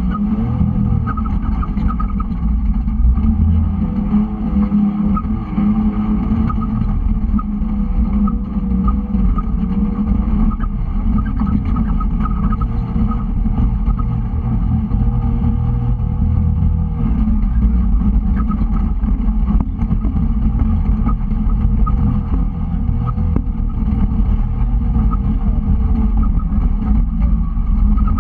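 Side-by-side UTV engine running under way, its pitch wavering up and down with the throttle over a heavy low rumble.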